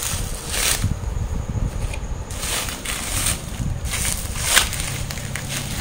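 Plastic bubble wrap crinkling and rustling as it is handled and pulled out of a cardboard box, in several short bursts, the loudest about four and a half seconds in.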